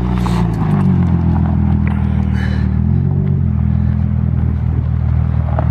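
Car engine revving hard as the car accelerates away. The note rises in the first second, drops a step about three seconds in, then holds steady.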